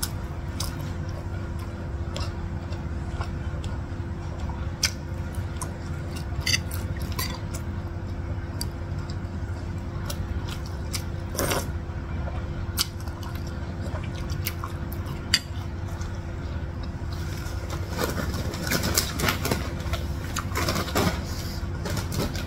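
Eating sounds: a metal spoon clicking against china bowls, chewing, and noodles slurped from a spoon of bakso meatball soup, over a steady low hum. The chewing and mouth sounds get busier for the last few seconds.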